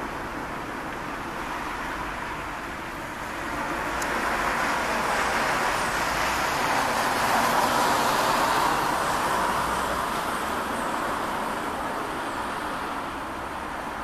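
Distant vehicle noise: a steady rush that swells to a peak about halfway through and then slowly fades.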